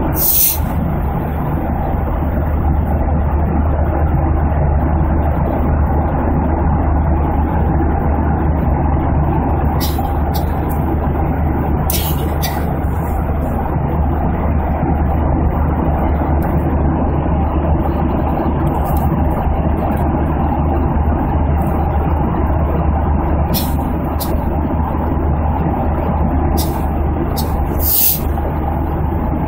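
Steady cabin noise of an airliner in cruise: an even, deep rumble and rush of engines and airflow. A few short clicks are scattered through it.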